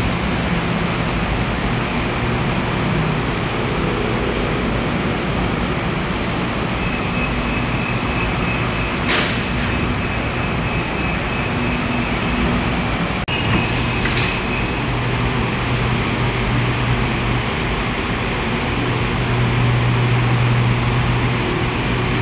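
MRT Yellow Line monorail train standing at an elevated station platform, its steady hum and air noise throughout. A steady high beep sounds for about five seconds from some seven seconds in, and again briefly near the middle. Sharp clunks of the sliding platform and train doors come about nine and fourteen seconds in, and the train's low hum grows stronger near the end.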